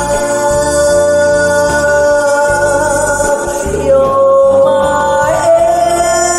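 A woman singing a long held note over a backing track with a pulsing bass. Her voice steps to a lower note about four seconds in and to a higher one near the end.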